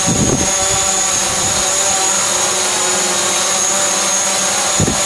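DJI Mavic Pro quadcopter with 8331 low-noise propellers, its motors and propellers running in a steady buzz with several steady tones and a high whine. There are brief low rumbles near the start and near the end.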